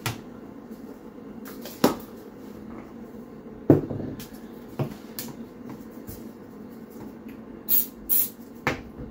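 Handling knocks as strips of vinyl flooring and a glue bottle are set down and picked up on a plywood board: a few short, sharp knocks, the loudest about halfway through, then two brief hissy sounds and one more knock near the end.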